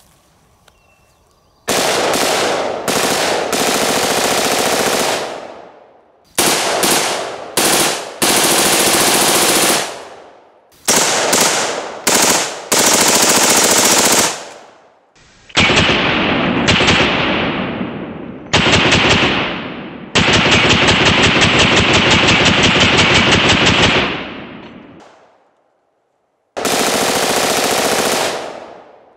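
Bushmaster AR-15 in 5.56 firing on full auto: repeated bursts of rapid shots, some short and some running for several seconds, with brief pauses between them.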